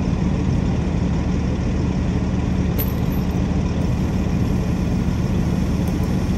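Heavy diesel engine of a wrecker truck running steadily, an even low drone with no revving.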